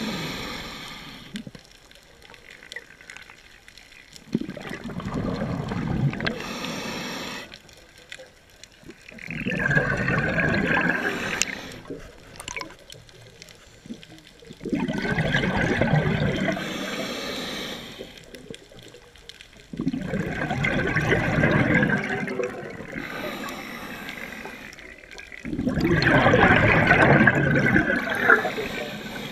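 Scuba diver breathing through a regulator underwater. A short hiss on each inhalation is followed by a loud bubbling rush of about three seconds as each exhalation vents, repeating about every five seconds, four times.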